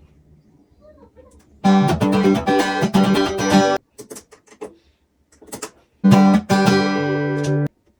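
Guitar strummed in two short bursts of chords, each stopped short, with a few light plucks and string noises in between.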